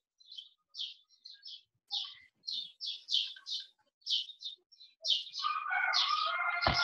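A bird chirping, short high chirps repeated about twice a second. From about five seconds in, a fuller sound with several held tones joins the chirps, and a sharp click comes near the end.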